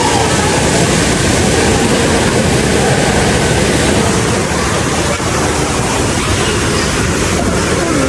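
Steady loud rush of falling water.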